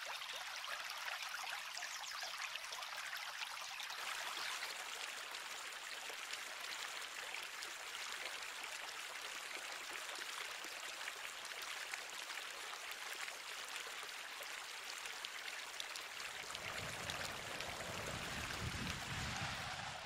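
A forest stream flowing and splashing in a steady rushing hiss, a nature recording presented as a KISSonix HDFX 3D-audio demonstration. A low rumble joins in about three-quarters of the way through.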